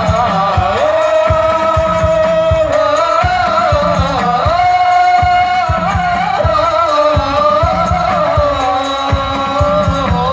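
A male voice sings a sholawat (Islamic devotional song) over a microphone and loudspeakers, in long wavering notes, with hand drums beating a quick, steady rhythm underneath.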